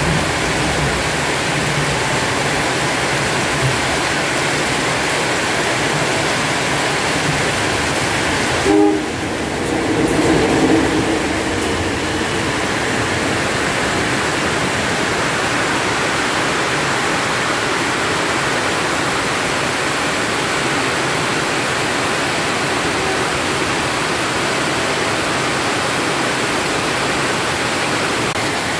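Heavy rain pouring steadily on the station roof, platforms and tracks, with a diesel locomotive rumbling past in the first few seconds. A short tone, horn-like, sounds about nine to eleven seconds in.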